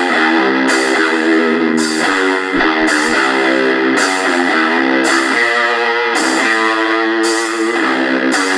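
Guitar-led music with a steady beat played as MP3 playback through the XHDATA D-901 portable radio's built-in speaker, thin on bass.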